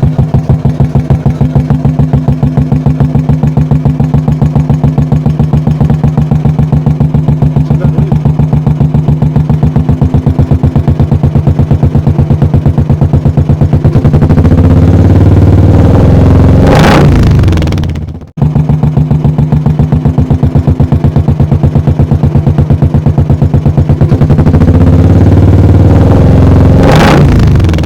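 Motorcycle engine idling loud and steady through an aftermarket Dolphin silencer whose ceramic and glass-wool packing has been knocked out, giving a deep, even thump. It is revved up twice, about 14 seconds in and again about 24 seconds in, the note rising and then falling back to idle. The sound cuts out suddenly for a moment after the first rev.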